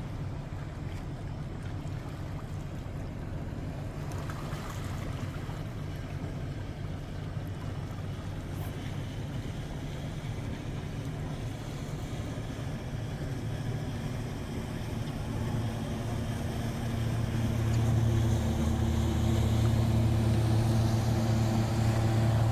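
Small motorboat's engine running steadily, growing louder over the last several seconds as the boat comes closer.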